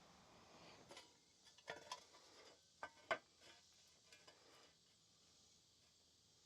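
Near silence with a few faint clicks and knocks about one to three seconds in, the sharpest just after three seconds.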